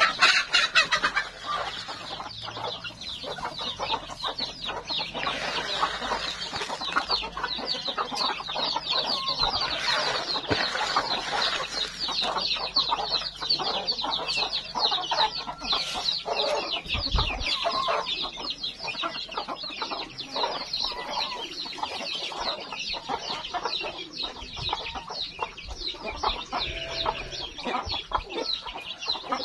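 A flock of free-range village chickens (ayam kampung): many chicks peeping without pause, with hens clucking over them.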